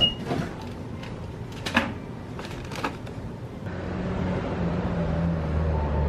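A short electronic beep from a self-checkout terminal and a few clicks and knocks as a card and items are handled. After about three and a half seconds, the steady low rumble of city street traffic and vehicle engines takes over and grows louder.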